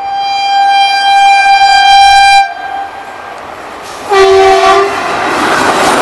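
Indian Railways electric locomotive horn: one long blast on a single high note for about two and a half seconds. About four seconds in comes a shorter horn blast on a lower note, followed by the loud rush and clatter of a train running past.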